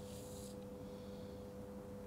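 Quiet room tone with a steady low hum, and a soft breath out in the first half second.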